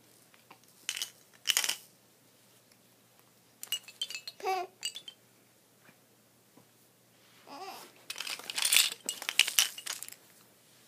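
Infant babbling and cooing in short sliding sounds, with plastic baby toys clinking and rattling as they are handled; the clatter is busiest and loudest in the last few seconds.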